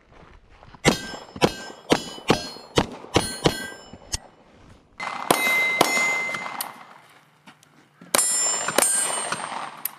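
Pistol fire: a quick string of about eight shots, each with a metallic ring. About five seconds in, and again about eight seconds in, louder shots ring on and fade.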